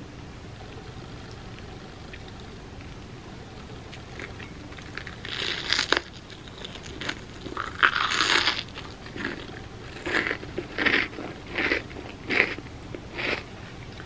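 Close-up crunching of crispy fried mochi bread being bitten and chewed: quiet at first, then two longer crunches followed by about five short, sharp crunches in quick succession near the end.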